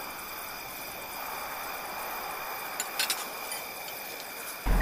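Steady background hiss with a short cluster of light clicks about three seconds in.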